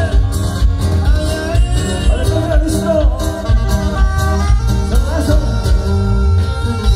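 A norteño band playing with a singer: the melody is carried by accordion and voice over a steady bass and drum beat.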